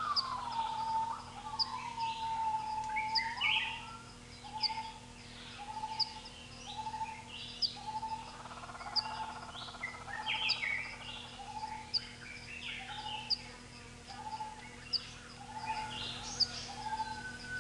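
A chorus of bird calls. One note repeats about every 0.7 s alongside a regular high chirp and other scattered calls, with a long falling whistle at the start and again near the end, over a steady low hum.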